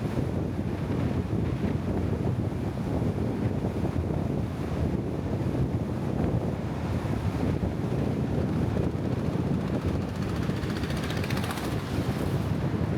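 Steady low rumbling wind noise buffeting the microphone, with no distinct events.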